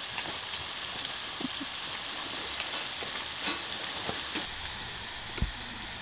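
Hot oil sizzling steadily in a pot as French fries deep-fry, with scattered small pops and a soft low knock near the end.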